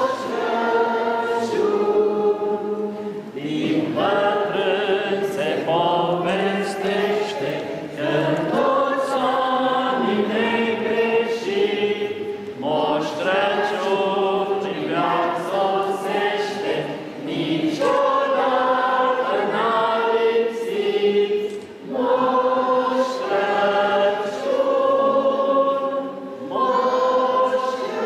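Children's choir singing a Romanian Christmas carol (colindă) together, in phrases of about four to five seconds with short breaks for breath between them.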